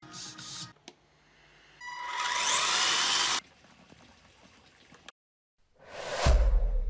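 A loud burst of whirring noise with a steady whine, lasting about a second and a half, then a rising whoosh that ends in a deep cinematic boom near the end as the intro title appears.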